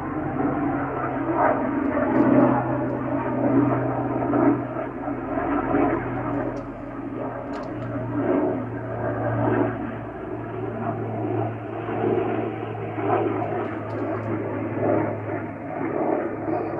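Sikorsky S-76C helicopter flying over, a steady aircraft engine and rotor noise with a low hum underneath.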